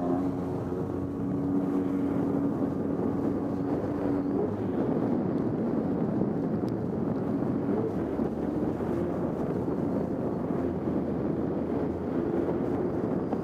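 Polaris SL750 personal watercraft's two-stroke twin running at speed across the water, mixed with water rush and wind on the microphone. The engine note holds steady for about the first four seconds, then turns rougher and wavers up and down as the craft crosses the chop.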